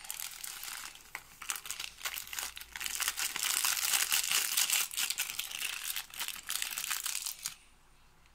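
Foil sachet of powdered sauce crinkling as it is shaken and squeezed to empty it over a plate of spaghetti. The crackly rustling swells in the middle and stops suddenly near the end.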